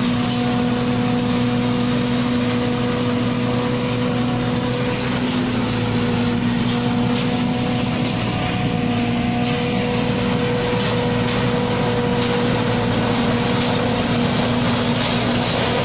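Rice combine harvester running steadily: a constant engine and machinery drone with a steady hum.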